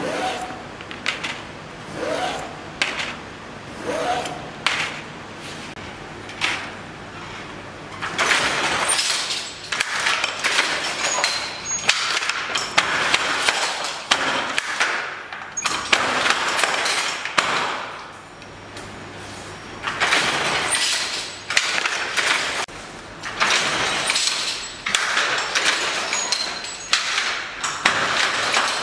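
Wooden jacquard hand loom worked by hand: a few taps and creaks at first, then from about eight seconds in repeated knocks and clattering about every one to two seconds as the batten beats in and the shuttle and treadles work.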